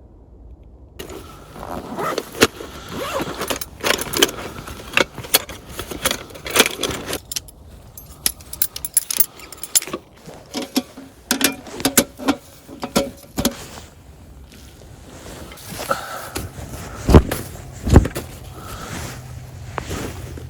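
Metal camp gear being handled: repeated clinks and rattles, then two heavy thumps near the end.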